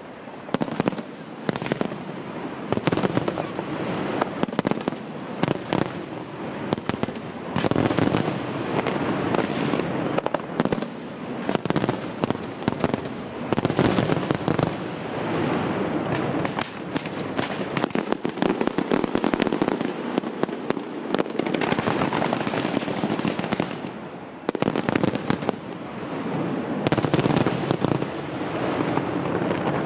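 Aerial fireworks display: a dense, rapid run of bangs and pops from bursting shells over a continuous crackle, with a few short lulls.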